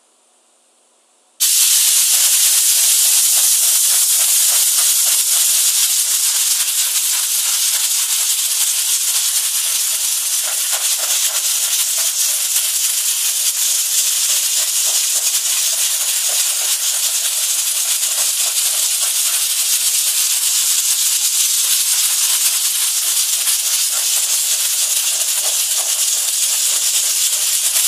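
CNISOO SGH-S2-PE dual-nozzle spray gun hissing steadily as it sprays a nano chrome-plating mist. The hiss starts abruptly about a second in.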